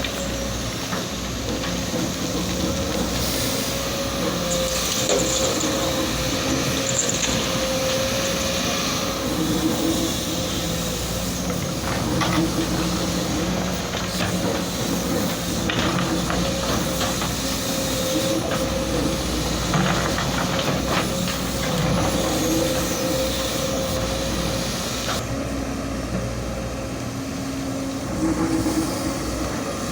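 Heavy excavator working with its diesel engine running steadily. A constant high whine sits over the engine noise, and now and then comes a short knock or scrape.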